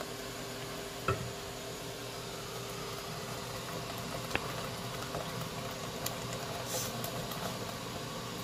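Crushed-tomato sauce simmering in a pot, a steady bubbling hiss, as a wooden spoon stirs it. There are short knocks of the spoon against the pot about a second in and again around four seconds.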